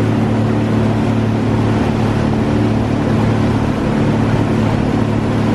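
Motorboat engine running at a steady cruising speed, a constant low hum under the rush of wind and water.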